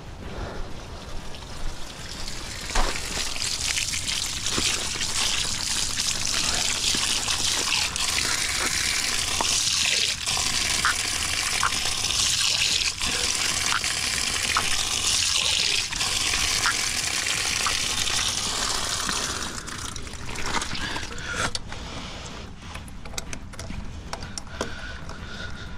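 Water rushing out of an outdoor garden tap under mains pressure, a steady hiss of spray that runs until about twenty seconds in and then dies away. Near the end come light clicks and scrapes of a brass fitting being screwed onto the tap.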